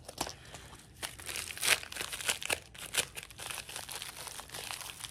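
Plastic packaging of a fishing lure crinkling and rustling as it is handled, with irregular crackles that are loudest a little under two seconds in.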